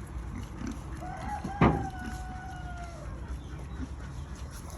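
A rooster crowing once: one long call of about two seconds that holds its pitch and slowly falls. A sharp thump comes near its start.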